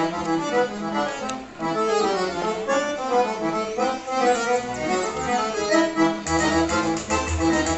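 Accordion music playing a melody, with a low bass line coming in about six seconds in.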